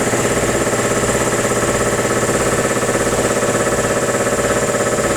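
Piston air compressor running steadily under load, a loud mechanical drone with a fast, even chugging pulse.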